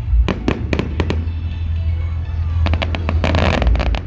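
Fireworks display: a rapid run of sharp bangs in the first second, then a dense crackling cluster of bangs near the end, over a steady low rumble.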